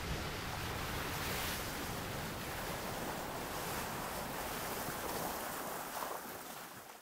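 Ocean surf: waves washing onto a shore as a steady rushing, swelling and easing, then fading out near the end.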